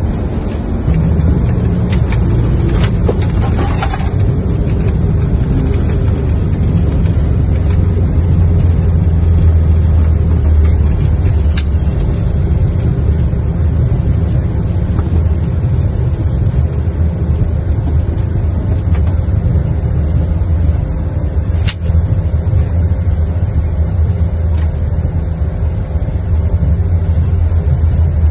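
Cockpit noise of an Airbus A220 rolling out on the runway after landing: a deep, steady rumble from the aircraft running along the runway. It swells about a second in and is loudest around the middle, with a few faint clicks near the start and twice later.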